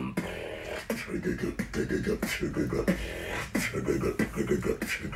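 Beatboxing: a man makes drum sounds with his mouth, one hand cupped at his lips. Sharp snare-like hits fall at a steady beat over a fast, pulsing hummed bass line.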